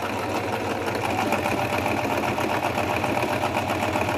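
Singer 1507 sewing machine running steadily, sewing a straight stitch with a fast, even needle rhythm; the machine is fairly quiet.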